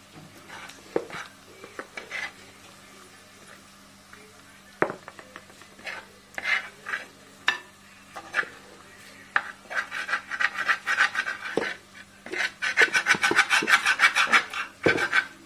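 Bare hand rubbing and squeezing chili powder and chopped aromatics against the inside of an unglazed clay pot: a gritty scraping. It comes as scattered scrapes at first, then from about ten seconds in as a run of quick rubbing strokes, loudest near the end.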